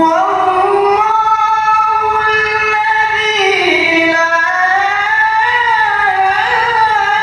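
A male qari reciting the Quran in the melodic tilawah style, drawing out one long ornamented note. The note wavers and bends up and down in pitch without a break.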